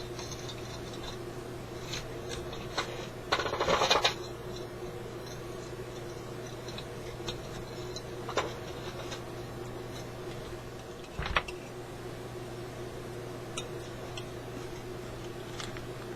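Small parts and tools being handled on a workbench: scattered light clicks and one brief clattering rattle about three seconds in, over a steady low hum.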